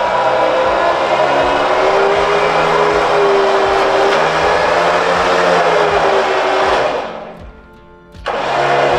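Background music with sustained, slowly bending tones, dropping out briefly near the end before coming back.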